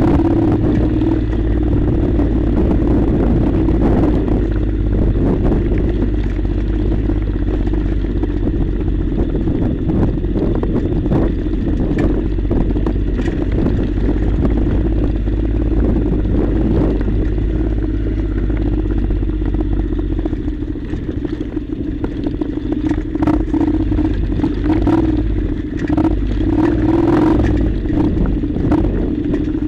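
Honda NC700's parallel-twin engine running steadily as the bike rides over a rocky dirt track, with stones and gravel clattering under the tyres. The engine eases off briefly about two-thirds in.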